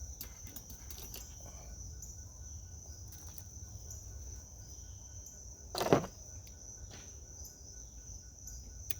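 Crickets chirping steadily over a low hum, with faint small clicks of handling and one sharp knock about six seconds in.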